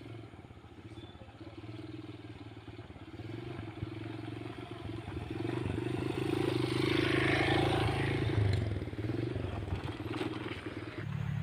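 Two small motorcycles riding past on a rough road. An underbone motorbike's engine hum grows louder as it approaches and peaks as it passes, with an automatic scooter close behind whose engine comes in near the end.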